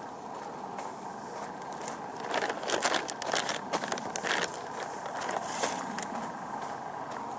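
Irregular crunching and crackling from walking along a dirt-and-gravel footpath with a handheld camera, loudest for a couple of seconds near the middle, over a steady outdoor background hiss.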